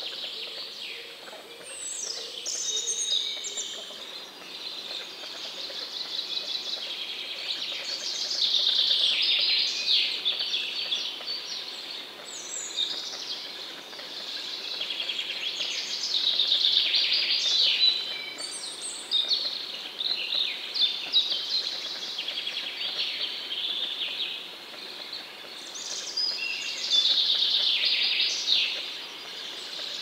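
Songbirds singing in repeated high phrases of a second or two, with quick falling notes and trills, over a faint steady outdoor hiss.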